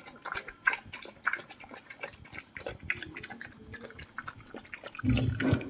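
Rottweiler puppies eating their food: many small irregular chewing and crunching clicks. A louder, lower animal sound starts near the end.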